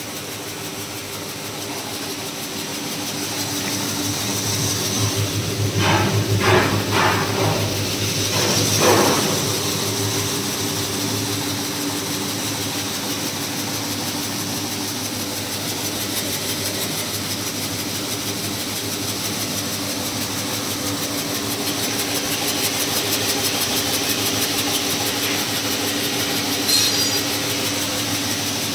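Flat grader seed cleaning machine running: a steady motor hum under the shaking of its vibrating sieve decks, with seed pouring off the screens. A few louder clatters come about six to nine seconds in.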